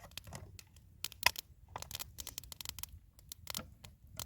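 A run of irregular, quick clicks and crackles, with one sharper snap about a second in.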